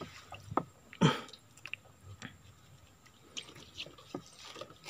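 Small splashes and drips of water around a wire-mesh fish trap held at the surface, with fish stirring inside it, and one louder knock about a second in.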